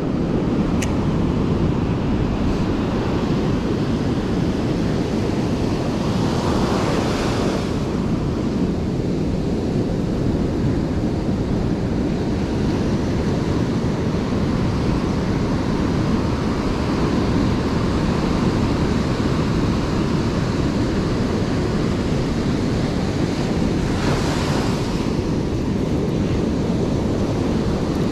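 Ocean surf breaking and washing up a sandy beach, with wind rumbling on the microphone. Two louder hissing washes of foam come in, one about six seconds in and one a few seconds before the end.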